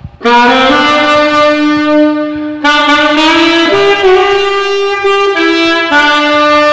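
Alto saxophone playing a slow melody phrase of held notes, with short breaths about two and a half seconds in and again near six seconds.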